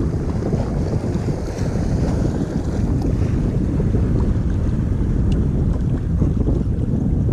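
Steady wind buffeting the microphone over the wash of choppy sea water, with a few faint ticks.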